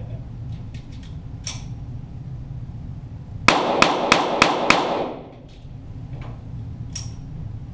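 .22 Walther GSP target pistol fired five times in quick succession, about three shots a second, heard from beside the target. A few fainter single shots come before and after.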